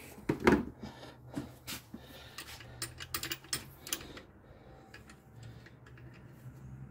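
Small metallic clicks and taps of hands handling a car's alternator, its adjusting bracket and drive belt, with one louder knock about half a second in; the clicks come thickly for about four seconds, then thin out.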